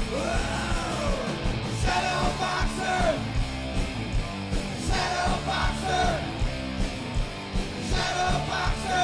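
Hard rock band playing: a driving drum beat of about two hits a second under bass and guitars, with a singer shouting a sung line about every three seconds.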